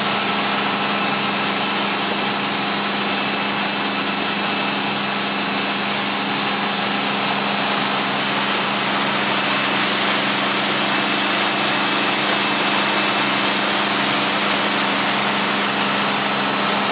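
Tow boat's engine running steadily at speed, with the rush of churning wake water behind it.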